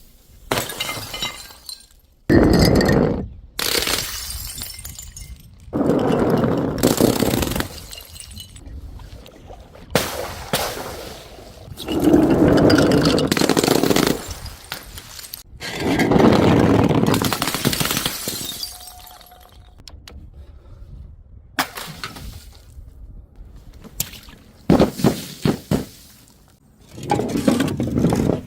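Glass bottles and jars shattering one after another: a series of loud, sudden crashes, each followed by a second or two of breaking and scattering glass.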